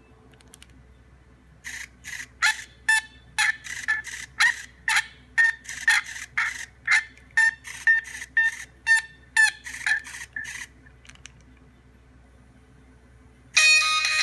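Nokia 3220 mobile phone sounding a string of short chirps, about three a second. They start nearly two seconds in and stop about ten seconds in.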